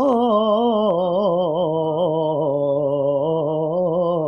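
An unaccompanied voice singing a naat, holding one long melismatic note whose pitch wavers up and down and steps lower about a second in.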